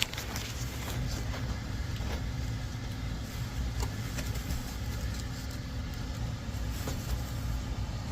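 Furnace blower running with a steady low rumble and hum, with a few faint clicks scattered through.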